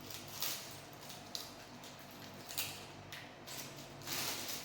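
Faint handling noises of packaging and parts: intermittent rustling with a few light clicks, a little busier near the end.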